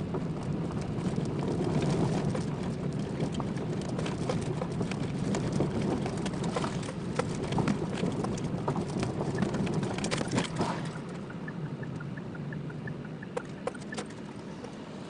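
Car driving on a rough road surface, heard from inside the cabin: steady engine and road noise with frequent sharp clicks and rattles from the tyres and body. It gets quieter about eleven seconds in.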